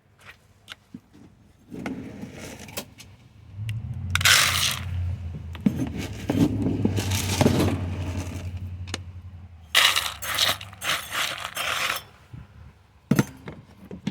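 Chicken feed being handled in a container: scraping and rattling in several bursts with scattered clicks, over a low steady hum through the middle stretch.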